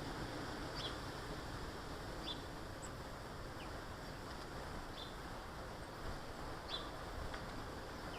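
Garden birds giving short, high chirps every second or so, over a steady background hiss and rumble.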